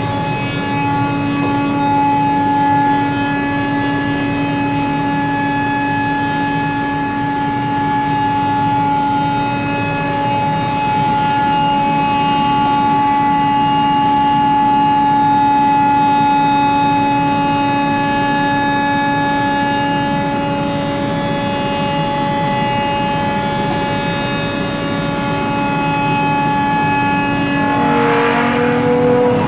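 Maka HC-57R CNC woodworking machining centre running, giving a steady whine over a hum that holds one pitch throughout. Near the end the tone shifts and a short rush of noise comes in.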